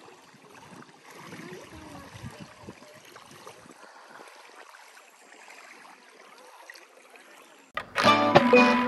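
Faint trickling, gurgling water. Loud background music with plucked guitar cuts in suddenly near the end.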